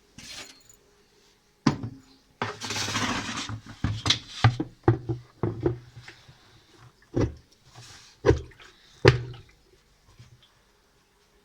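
Washing machine drum (inner tub) being worked down onto its gearbox shaft: a brief scraping rush, then a string of hollow knocks and clunks as the tub is pushed and settled until it seats. The loudest clunk comes near the end.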